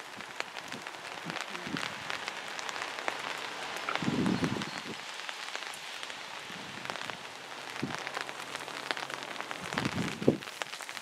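Rain falling steadily, with a constant hiss and many small drop ticks landing on surfaces. There are dull low thumps about four seconds in and again near the end.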